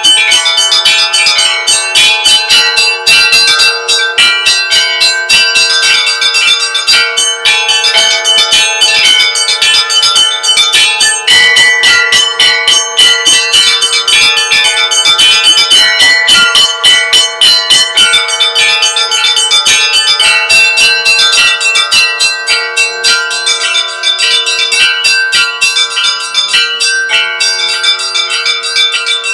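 Russian Orthodox church bells ringing a continuous peal: small bells struck rapidly in quick succession over the sustained hum of a deeper bell.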